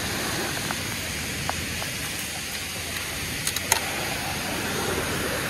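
Steady rushing noise of rain and the flooded river, with a few sharp ticks about three and a half seconds in.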